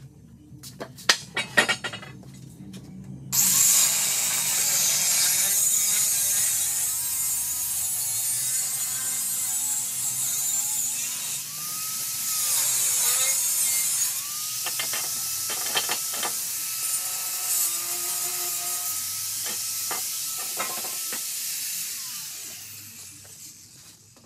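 A few sharp knocks, then an angle grinder with a cut-off wheel starts and cuts through the steel tube of an old metal bed frame, a loud hissing screech whose motor note sags and recovers as the wheel bites. It runs down and fades out near the end.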